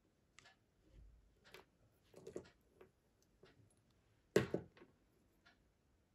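Small handling noises of a watch band being taken off: short clicks and rustles of the resin band, its pin and a small screwdriver, with a sharper clack about four and a half seconds in. Faint ticks run underneath at about one a second.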